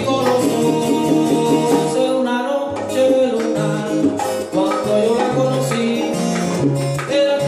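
Live son cubano played by two guitars and a pair of bongos, with singing over the steady rhythm.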